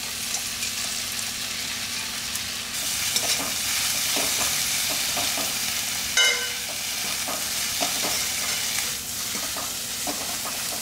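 Fried ivy gourd, onion and capsicum sizzling in oil in a metal kadai while a metal spoon stirs and scrapes through them, with a ringing clink of metal on the pan about six seconds in.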